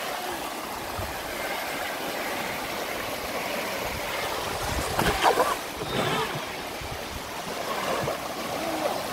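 Shallow river rapids rushing steadily over rocks. A person's voice is heard briefly about five seconds in.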